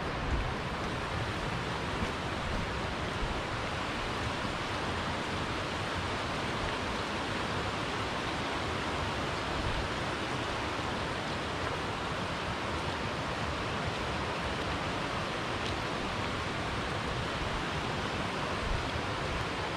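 Fast-flowing mountain river rushing past, a steady unbroken wash of water noise with no change in level.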